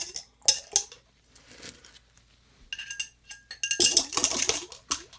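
Rusty metal screws, bolts and other furniture hardware clinking and jangling as they are tipped into a container for rust remover. There are short clatters early on, a few pieces ring briefly in the middle, and the loudest rattle of pieces comes about four seconds in.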